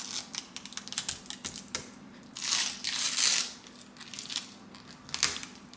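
Plastic packaging crinkling and rustling as it is handled and unwrapped: scattered small crackles, with a longer, louder rustle about two and a half seconds in.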